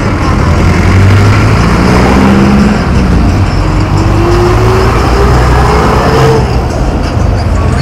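A motor vehicle running over a loud low rumble, its pitch rising steadily for a few seconds as it speeds up, then dropping out about six seconds in.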